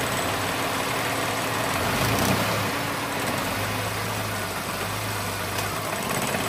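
Hyundai Eon engine idling roughly and shaking with the air conditioning switched on. The idle fails to step up under the AC load, as it should, a sign of the idle air control fault being chased. A deeper low rumble comes in about two seconds in and fades near the end.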